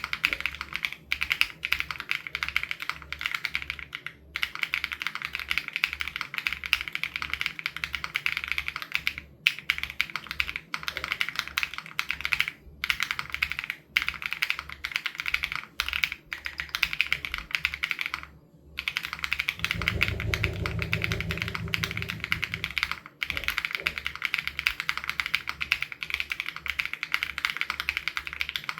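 Fast, steady typing on an SPM AL87B mechanical keyboard with BSUN Raw switches, keystrokes clacking in quick runs broken by a few brief pauses. About twenty seconds in, a low hum sounds under the typing for about three seconds.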